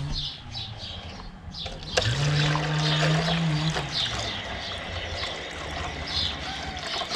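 Water pouring from a plastic jug into a plastic cup set in a tractor's filler neck, a steady trickling and splashing as the cooling system is topped up.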